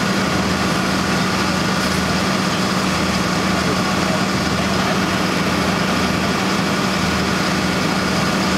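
Fire engines' diesel engines running steadily, an even hum that holds one pitch with no revving.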